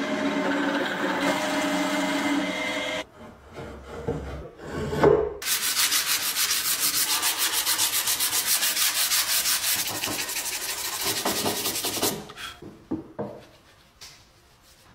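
A drill press running as its bit bores into a wooden board, with a steady motor hum under the cutting noise, stopping about three seconds in. After a few knocks, the wood is sanded by hand with sandpaper in quick back-and-forth strokes, about four a second, which stop a few seconds before the end.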